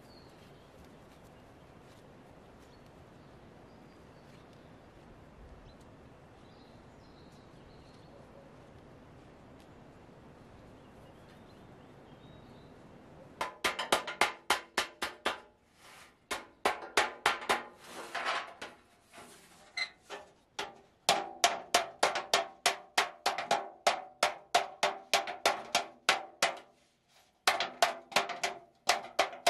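A low, steady outdoor background. About halfway in, a hammer starts striking a long sheet-metal channel laid across a wooden stump: fast runs of ringing metal blows, several a second, broken by short pauses. This is the metal being beaten into shape as a cover for a drain pipe.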